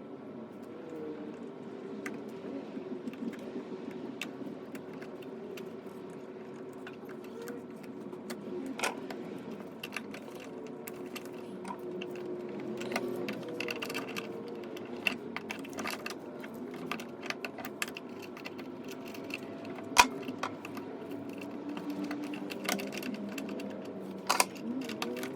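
Scattered light clicks and clinks of small hard objects being handled, with one sharp click about twenty seconds in.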